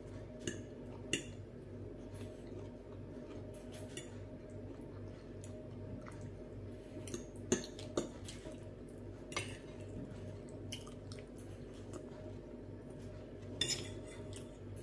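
Metal knife and fork clinking and scraping against a glass dinner plate while food is cut, a few scattered sharp clinks, the loudest about halfway through, over a steady low hum.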